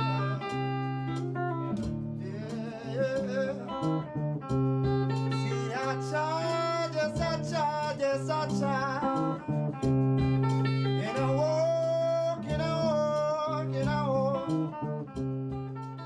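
Band music in a studio session: a guitar plays over low notes that repeat in a steady pattern, and a man sings a wavering melody on top from about two seconds in.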